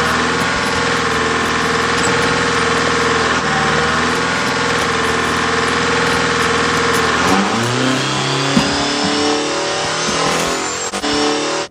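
Dodge Ram pickup's Cummins diesel engine running flat out at high, steady revs, acted out as a runaway diesel. About seven seconds in, its pitch drops and wavers up and down, with a thin whistle rising in pitch over it.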